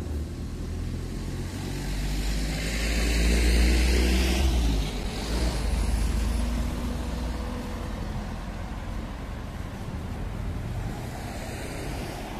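City road traffic: a motor vehicle's engine and tyres pass close, swelling to loudest about three to four seconds in and fading, with a lesser swell near the end.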